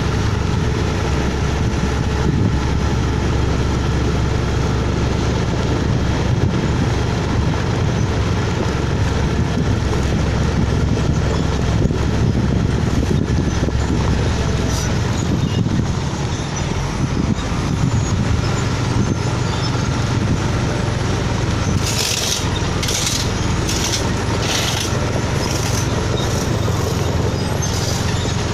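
Komatsu GD555 motor grader's diesel engine running steadily under load, a deep continuous rumble. A run of about six short, sharp high noises comes near the end.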